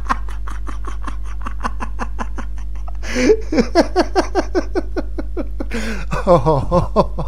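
A person laughing in a long fit: a quick run of short laugh pulses, about four a second, growing louder about three seconds in and again near the end.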